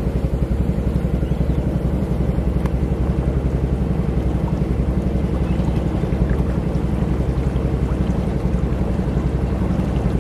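Small engine of a Mokai motorized kayak running steadily underway, with a fast, even pulsing.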